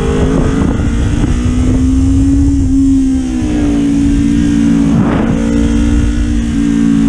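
Sport motorcycle engine running at a steady, moderate speed while riding, its pitch holding nearly level with small dips, over a low rumble. A brief sharp sound cuts in about five seconds in.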